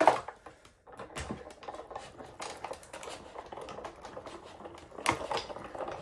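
Sizzix Big Shot Foldaway die-cutting machine being hand-cranked, its rollers drawing the cutting plates and die through with a rapid, uneven clicking. A sharp knock at the start, and another about five seconds in.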